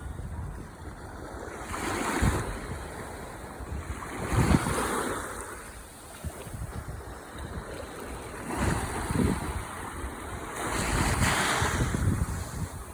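Ocean waves breaking and washing up the shore. Several swells surge in and fall back over a steady rushing wash, with wind buffeting the microphone.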